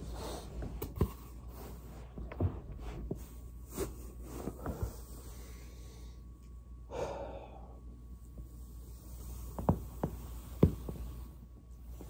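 A body rolling over a foam roller on carpet, with about half a dozen sharp pops of joints cracking, the loudest two close together near the end. A short breathy exhale about seven seconds in.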